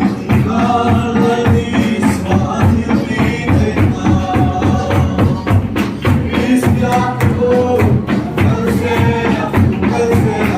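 Group singing of a hymn with a steady percussion beat, loud and continuous.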